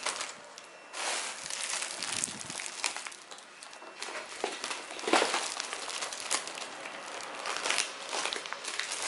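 Plastic grocery packaging and bags crinkling and rustling as hands move and arrange wrapped packs of crackers and snacks, in irregular bursts, loudest about five seconds in.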